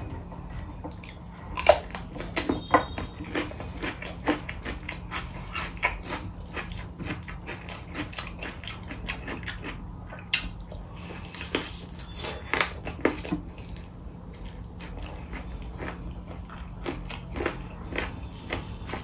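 Close-miked chewing of a mouthful of rice and chicken curry, with many short, irregular wet clicks and smacks.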